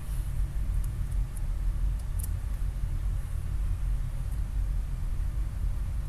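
Steady low rumble of background noise, with a few faint sharp clicks in the first half.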